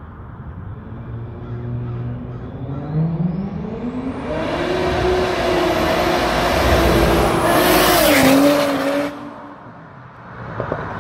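Turbocharged 2JZ inline-six in a Lexus IS300 revving hard, rising steadily in pitch for about three seconds and then holding high. Near its loudest there is a rush of noise, and the sound cuts off suddenly about nine seconds in.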